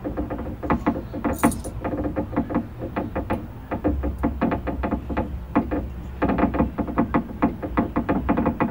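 Tin toy bird sound object clicking and rattling in an uneven run of short metallic ticks, a few a second, each with a brief ringing tone. The ticks come thicker in the last couple of seconds.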